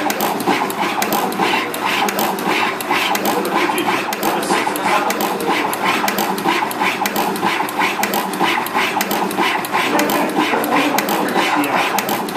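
SMT pick-and-place machine placing SMD LEDs onto a PCB panel at high speed: rapid, even clicking from the placement head, several clicks a second, over the steady hum of its motors.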